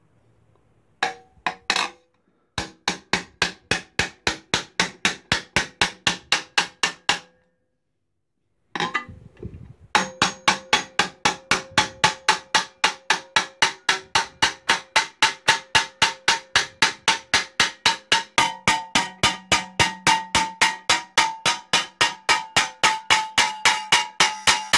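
Mallet beating a thin aluminium sheet on a steel block, rapid even blows about four a second, each with a short metallic ring, hammering a shallow dome into the sheet. The blows stop briefly about seven seconds in, then resume and run on steadily.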